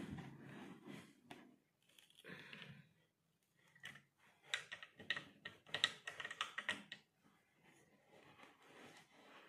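Allen key fitting into a furniture screw on a wardrobe panel: soft handling at first, then a quick run of light, sharp clicks and taps lasting a couple of seconds in the middle.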